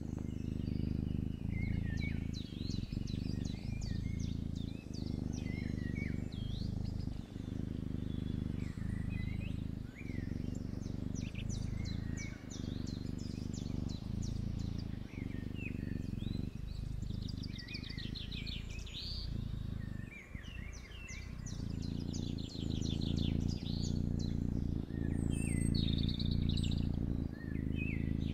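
A sleeping kitten purring close up: a steady low rumble that breaks briefly about every second and a quarter, with each breath. Small birds chirp and trill faintly behind it, with several fast trills in the second half.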